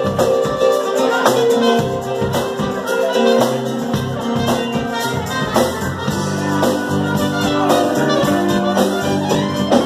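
Live band playing an upbeat song, drums keeping a steady beat under held notes from the instruments.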